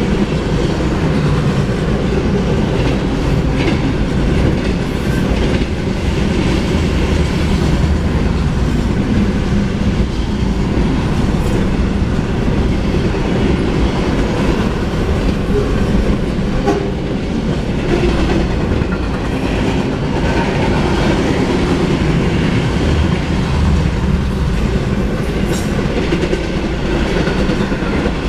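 Double-stack intermodal freight cars rolling past on the main track: a loud, steady rumble and clatter of steel wheels on the rails.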